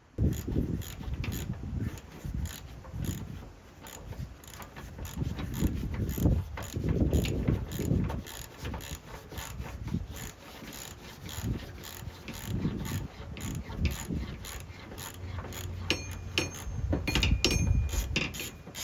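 Hand tools working on mower spindle hardware: rapid metallic ratchet-like clicking all through, with uneven knocks and handling of metal parts, and a brief high squeak near the end.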